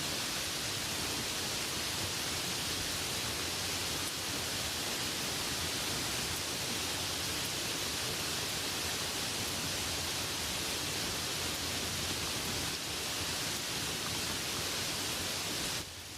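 Rain falling, a steady, even hiss, which drops suddenly to a quieter, lighter level right at the end.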